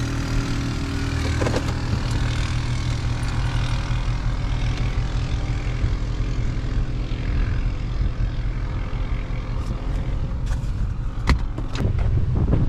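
Nissan Titan pickup driving, its V8 and road noise heard from inside the cab as a steady low drone. A sharp click near the end.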